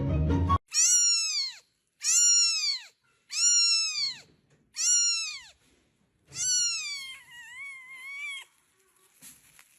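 A cat meowing loudly, five times, each call rising and falling in pitch; the fifth is longer and wavers before dying away.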